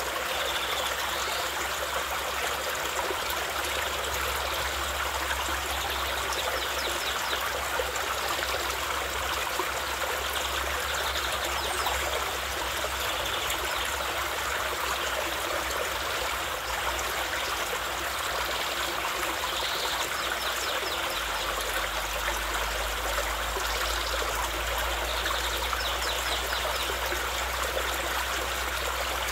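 A small, fast-running stream flowing and trickling steadily over its bed. A low rumble beneath it grows stronger about two-thirds of the way through.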